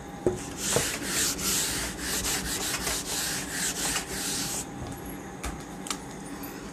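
A whiteboard duster wiping the board clean: a run of quick rubbing strokes that starts about half a second in and stops about two seconds before the end.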